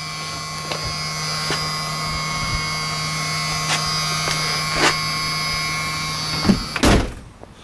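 A small motor running with a steady hum and constant high whine, then stopping near the end with a sharp knock.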